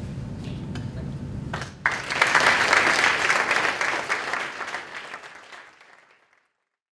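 Audience applause that breaks out suddenly about two seconds in after low room noise, then fades out to silence.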